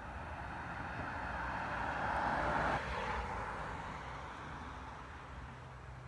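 A vehicle passing by: a rushing noise that builds to its loudest nearly three seconds in, drops off sharply and then fades away.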